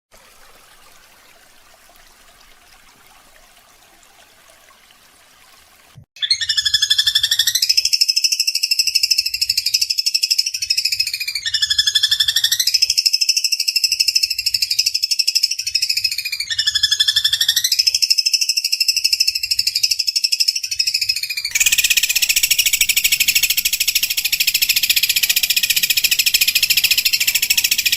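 Long-tailed shrike giving harsh, rasping, buzzy calls, loud and high. The same phrase comes three times, about five seconds each. From about three-quarters of the way in it runs into one continuous rasp. The first six seconds are only faint hiss.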